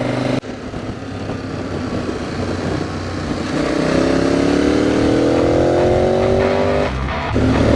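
KTM 1290 Super Adventure's V-twin engine accelerating under the rider, with wind rush; the engine note climbs steadily for a few seconds, drops out briefly near the end for an upshift, then pulls again at a lower pitch.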